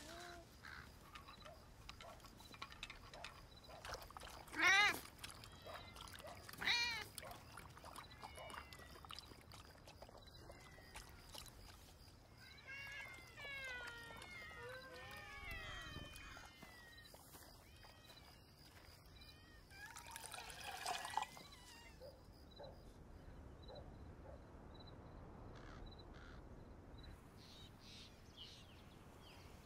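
Several cats meowing: two loud meows about five and seven seconds in, then a cluster of overlapping mews from many cats near the middle. Over the quieter last third, a faint high chirp repeats about once a second.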